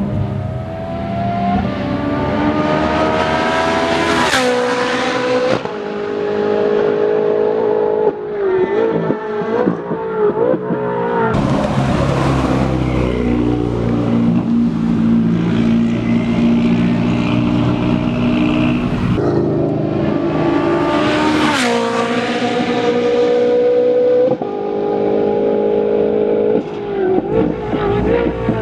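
Race car engines at high revs accelerating on a circuit, their pitch climbing, with two close pass-bys about four and twenty-one seconds in where the note drops sharply as a car goes by.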